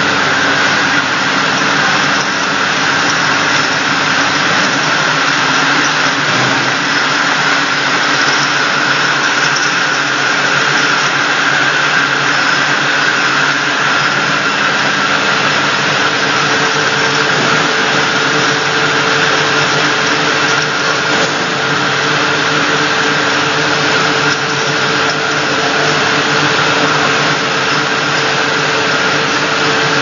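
Automatic glass bottle washing machine and its bottle conveyors running steadily: a continuous machine noise with a few steady tones.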